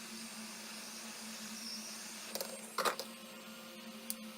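A few short plastic clicks and taps as a pry tool and guitar pick work under the edge of an iPhone 7's screen, over a steady electrical hum.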